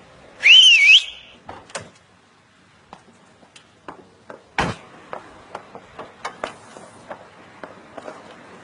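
A short, loud whistle that rises, dips and rises again, followed by clicks and one heavy thud about four and a half seconds in as a door opens in answer to the whistle; light, irregular taps follow.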